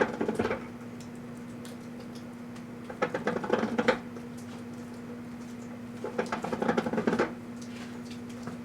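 Microwave oven running with a steady hum while the plush singing pig toy inside burns, giving three bursts of rapid crackling and popping about three seconds apart.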